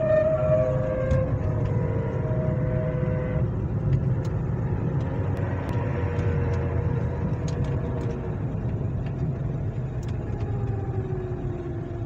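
Hyundai ix35 driving at about 40 km/h, heard from inside the cabin: steady road rumble with a pitched hum from the front end, which falls slowly in pitch near the end as the car slows. The mechanic doubts it comes from the hub bearings and suspects something else, perhaps the transfer case.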